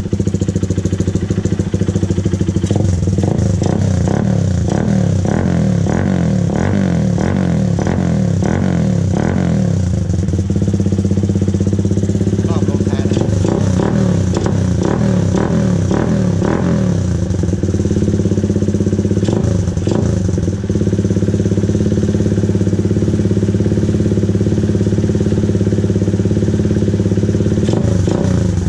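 Honda Sonic 125 motorcycle engine running through an aftermarket OPBR exhaust with a mesh-baffle tip, a loud open exhaust note. The throttle is blipped over and over through the first half or so, then the engine settles back to a steady idle.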